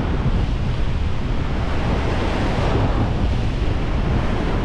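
Ocean surf breaking and washing over a rock ledge, with wind buffeting the microphone in a steady low rumble; the wash swells briefly about halfway through.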